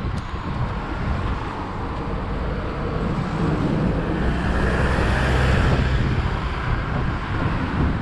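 Wind rushing over the microphone of a bike-mounted action camera, with street traffic. A car passes in the middle, its tyre and engine noise swelling and then fading.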